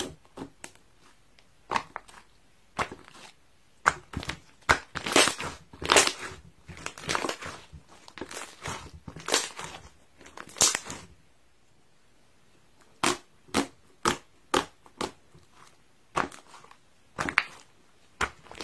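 Pink slime being pressed and stretched by hand, giving irregular sticky clicks and pops, with a short pause about two-thirds of the way through.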